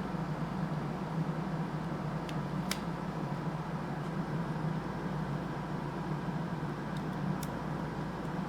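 Steady room hum and hiss, with a few faint, sharp clicks of small plastic and metal model-locomotive parts being worked loose by hand.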